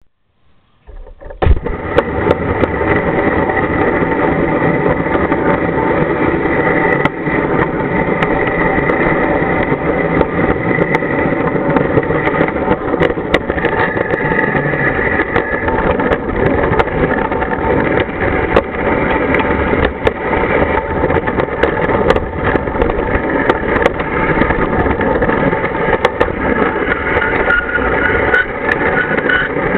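G scale model train running along garden railway track, heard from on board: a steady close rumble of wheels on rails with a steady whine, and frequent sharp clicks. It starts about a second and a half in.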